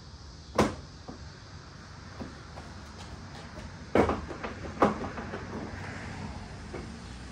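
Lexus GX470's plastic front bumper cover being tugged loose from its clips, giving three sharp plastic snaps and knocks, one about half a second in and two in quick succession around four to five seconds in, with a few lighter clicks between.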